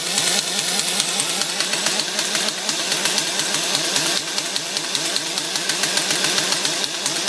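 Old air impact wrench running continuously, with a fast mechanical rattle and a steady hiss of exhaust air. It is being run to bleed down the compressor tank's pressure so the compressor will cut back in.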